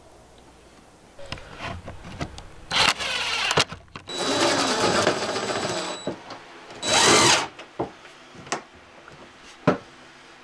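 DeWalt cordless drill running in several short bursts, driving screws to mount cabinet-door hinges, the longest run about two seconds with a steady motor whine. A few sharp knocks follow near the end.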